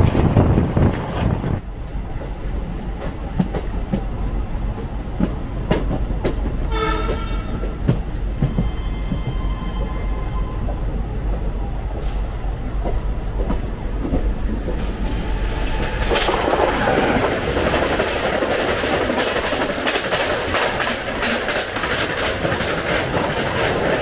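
Running sound of a diesel-hauled passenger train heard from the open coach doorway: wheels on rail with a steady low engine rumble, and wind buffeting in the first second or so. A short horn blast sounds about seven seconds in, with a fainter held horn a couple of seconds later. From about two-thirds of the way through, a Tejas Rajdhani Express on the adjacent track rushes past, a louder dense roar of wheels with rapid clickety-clack over the rail joints.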